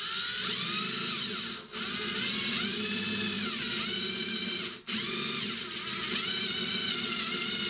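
Cordless impact driver with a 6 mm stainless-rated drill bit boring through a flattened stainless steel spoon. The motor runs with two brief let-offs, about 1.7 s and 4.8 s in, and the bit squeals against the hard steel in wavering high tones that rise and fall.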